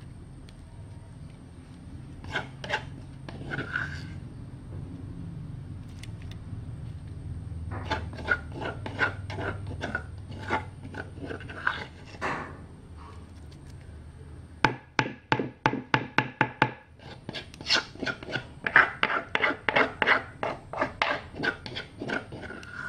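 Pestle pounding in a mortar, pounding fresh shrimp with chilli and herbs: scattered knocks at first, then fast runs of strokes at about five a second in the second half.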